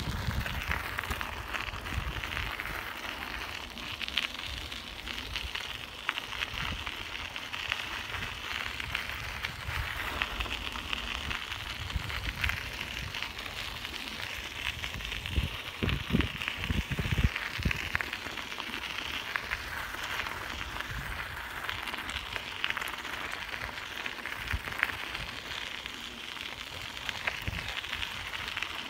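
Bicycle tyres rolling over a gravel trail: a steady crackling crunch of stones under the wheels, with low rumble and a few heavy low thumps around the middle as the ride gets rough.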